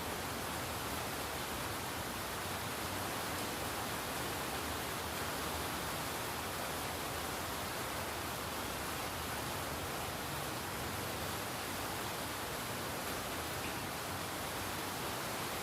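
Steady rain, a dense, even hiss of drops with no single drop or other sound standing out.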